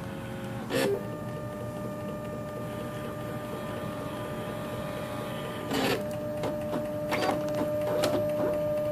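Zebra ZXP Series 3 card printer's mechanism running after a cleaning cycle is started: a steady motor whine with a sharp clack about a second in and another near six seconds, then a run of quicker clicks and short whirs.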